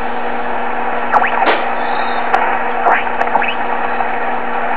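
Drake 2-B shortwave receiver's speaker output: steady band hiss and static with a steady low hum, and a few faint, garbled voice fragments from the tuned signal.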